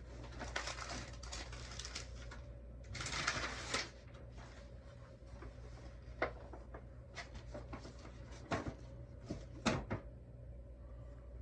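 Handling noise of items being shown: paper rustling in two stretches over the first four seconds, then a few sharp clicks and knocks, the loudest about ten seconds in.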